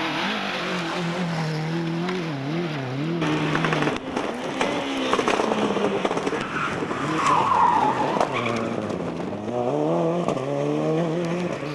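Rally car engine revving hard, its pitch climbing and dropping again and again through gear changes and lifts, with tyres squealing a little past halfway.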